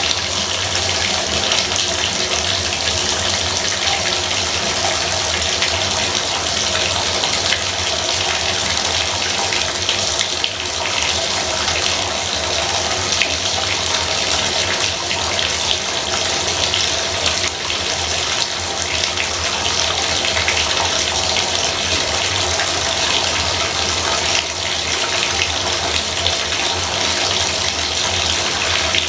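Bathtub faucet running steadily, a constant hiss of water pouring out.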